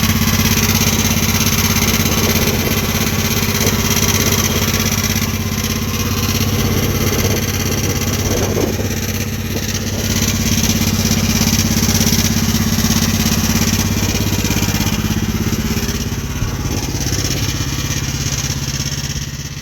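Homemade mini skid steer's engine running steadily at a constant speed, easing off slightly near the end.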